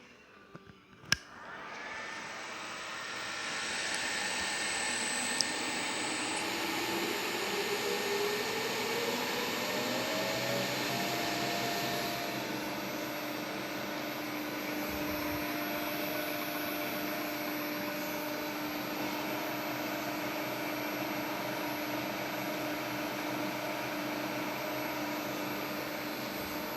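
Lunan ZX50F drill-milling machine switched on with a click about a second in. Its inverter-driven spindle drive ramps up over about ten seconds with a slowly rising whine, then runs steadily at speed. A thin high whistle sits above it and steps higher about six seconds in.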